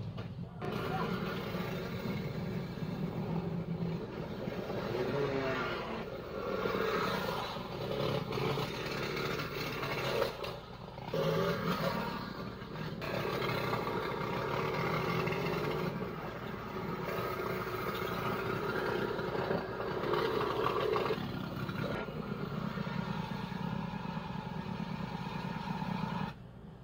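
Small gas engine of a homemade motor trike running and changing speed, in several short clips cut one after another.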